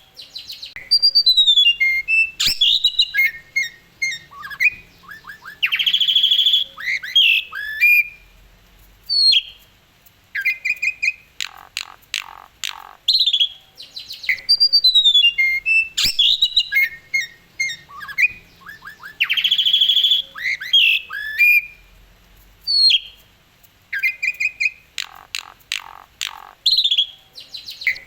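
Asian pied starling (jalak suren) singing loudly in a busy, varied song of whistled glides, quick chirp runs and harsh squawking notes, delivered in bursts with short pauses. The same run of phrases repeats about halfway through.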